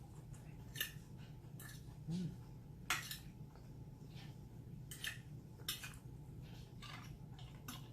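Eating sounds: scattered soft clicks and smacks every second or two while a quesadilla is chewed, with a brief closed-mouth hum about two seconds in.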